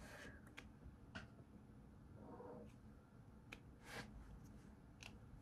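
Near silence: room tone with a few faint brief clicks.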